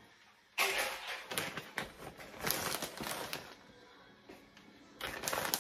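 Plastic shredded-cheese bag crinkling as it is handled. The crinkling starts about half a second in, lasts about three seconds, and comes back briefly near the end.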